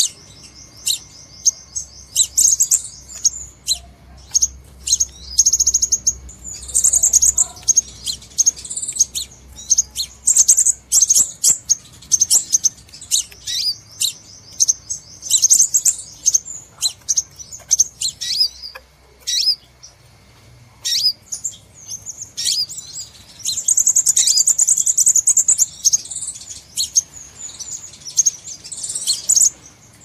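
Crimson sunbird calling in a lure recording: rapid, high-pitched chirps and short trills, with longer, louder runs of trilling about seven and twenty-four seconds in.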